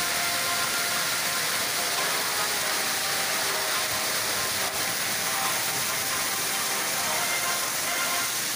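Heavy rain pouring down, a steady, even hiss.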